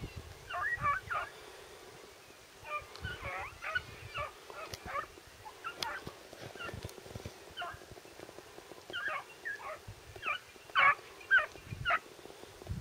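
Rabbit-hunting dogs giving tongue in the distance: short, irregular yelps and bays in clusters, with the loudest couple of calls near the end, the sound of hounds running a rabbit.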